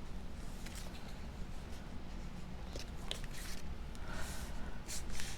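Cardstock being handled and pressed into place by hand: scattered soft paper rustles and light taps, over a low steady hum.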